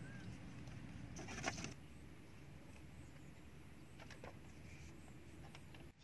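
Light rustling and knocking of bamboo poles and cord being handled as a frame is lashed together, loudest in a short cluster about a second and a half in, with a few faint ticks later. A bird's short chirp trails off at the start.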